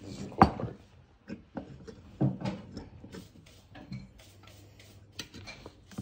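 Light clicks and knocks of a Belgian balance siphon coffee maker's metal and glass parts being handled on a counter, with a sharp knock about half a second in and another about two seconds in.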